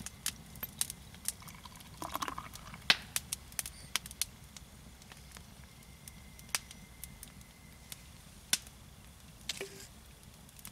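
Canned golden ale poured into a glass: quiet splashing and fizzing, with scattered sharp ticks and clicks.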